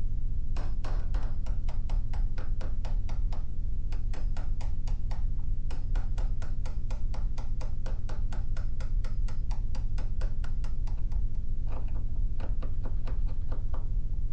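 Chisel being tapped rapidly and lightly into oak to cut a shallow recess for a lock catch, about five sharp taps a second, with a brief pause near the end before the tapping resumes. A steady low hum runs underneath.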